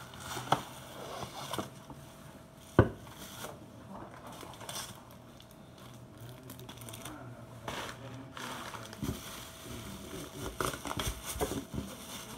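Unboxing a vacuum-insulated mug: cardboard box and plastic wrapping rustling and crinkling as they are handled, with several sharp knocks, the loudest about three seconds in.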